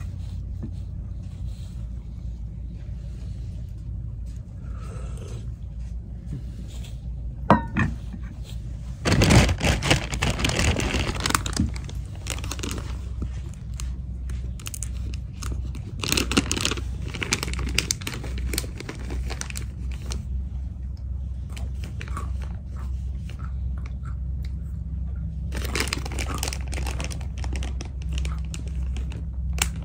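Someone eating a crunchy snack, with crinkling of its wrapper, in clusters of crunching about nine, sixteen and twenty-six seconds in, over a steady low hum.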